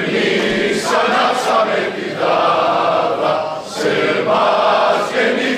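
A crowd of men and women singing together in unison, choir-like, in phrases broken by short pauses every second and a half or two.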